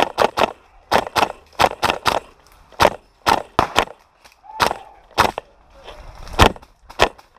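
Airsoft rifle fired shot by shot in semi-automatic, about sixteen sharp cracks at an uneven pace, some in quick pairs and others a second or so apart.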